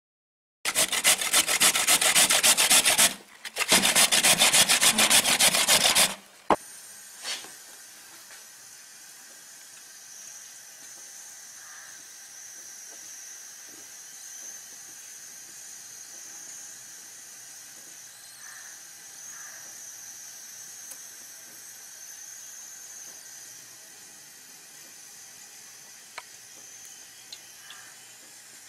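Red carrots grated on a stainless-steel box grater: two runs of rapid rasping strokes with a short break about three seconds in, stopping about six seconds in. A faint steady hiss follows.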